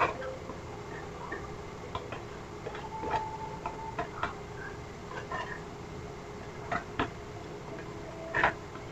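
Corn kernels being cut off the cob with a knife into a small pot, heard as irregular light clicks and taps. There is a sharper knock right at the start and a small cluster near the end.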